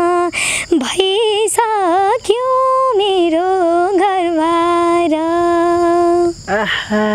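A young woman singing a Nepali song unaccompanied, holding long notes with ornamented turns and bends, and stopping near the end.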